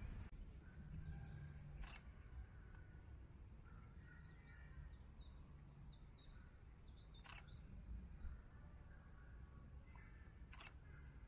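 Faint outdoor ambience: small birds chirping in a quick run of short high notes, over a low wind rumble, with three sharp clicks spaced a few seconds apart.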